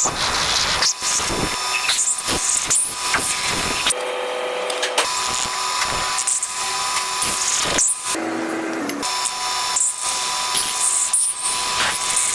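Metal lathe machining a silver workpiece: the tool cutting metal with a noisy hiss and high squeals, heard in short clips that change abruptly every second or so.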